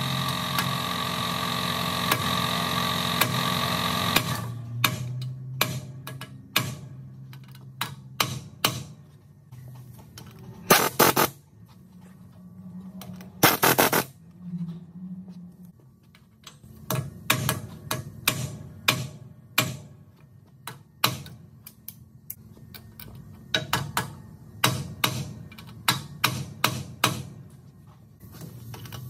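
A steady machine hum with several held tones cuts off about four seconds in. Then metal tools and parts click and clink against a truck's steel steering knuckle, in quick runs of small knocks, with two short louder bursts near the middle.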